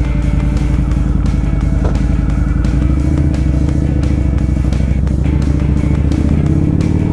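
Motorcycle engine idling steadily, with background music over it.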